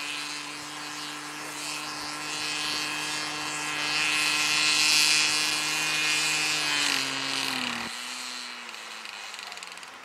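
Evolution 100 two-stroke glow engine of an RC model plane running steadily on the ground, smoking heavily. About seven seconds in it slows, its note dropping and quietening, and it runs on with a still-falling pitch.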